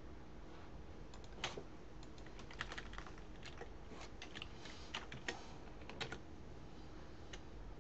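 Faint typing on a computer keyboard: an irregular run of key clicks, starting about a second and a half in and stopping about six seconds in, over a low steady hum.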